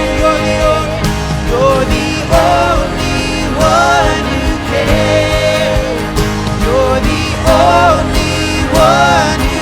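Worship band music from a contemporary Christian song: melodic phrases rising and falling over sustained chords and a steady bass.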